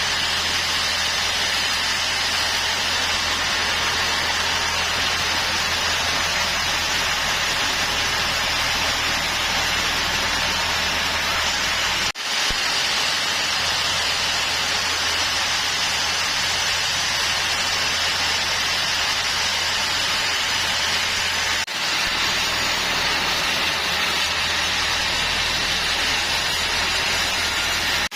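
Sawmill machinery running: a steady, loud hiss over a low hum, cut off briefly twice.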